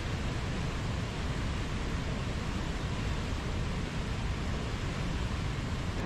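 Whitewater river rapids rushing steadily over boulders: an even, unbroken rush of water.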